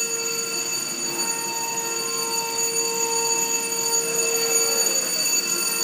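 CC 206 diesel locomotive's General Electric engine running, heard at its open engine-compartment doors: a steady mechanical whine made of several held tones over a hum, growing a little louder toward the end.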